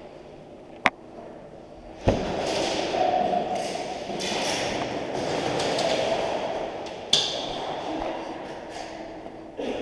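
Airsoft play echoing in a large concrete hall: a sharp click about a second in, a heavy thud near two seconds followed by several seconds of rushing, echoing noise, and another sharp crack near seven seconds.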